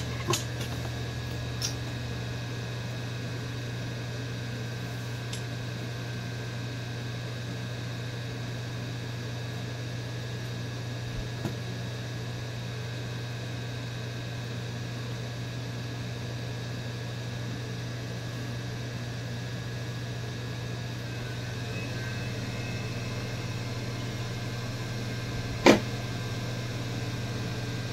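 Steady low electrical hum, broken by sharp clicks of a hand screwdriver and screws knocking on a laminate furniture panel: a few near the start, a couple near the middle and one loud click near the end.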